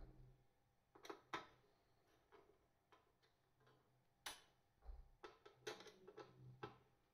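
Faint, irregular clicks and knocks of a black metal battery-case front panel being handled and turned by hand, the sharpest knock a little over four seconds in.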